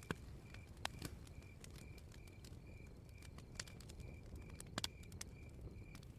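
A campfire crackling, with irregular sharp pops over a low rumble, and a high chirp repeating evenly about two to three times a second behind it.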